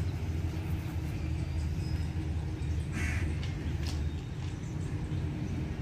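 A crow gives a single harsh caw about three seconds in, over a steady low rumble.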